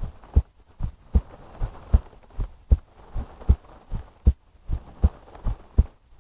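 A woman's heartbeat heard close up, steady double thumps (lub-dub) repeating a little faster than once a second, with a faint hum between the beats.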